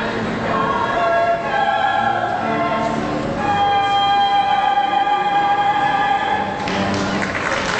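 Small group of women singing in operatic style with cello accompaniment, ending on a long held chord about halfway through; audience applause breaks out near the end.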